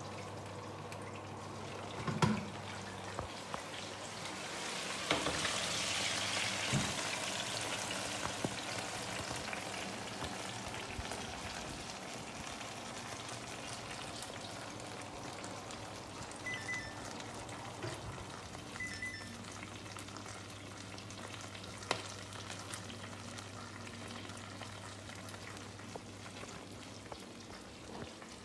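Steady sizzling hiss of meat frying in hot fat, swelling a few seconds in and easing off, with a few light clicks and two short high double beeps midway.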